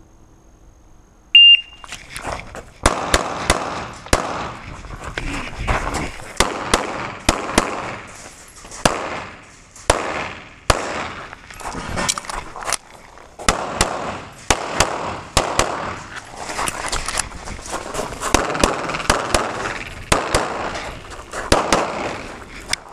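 A shot timer beeps once, about a second and a half in. It is followed by a long string of pistol shots, fired in quick pairs and short groups with gaps between them. Between the shots there is a steady rustle of movement as the shooter runs an IPSC Production-division stage.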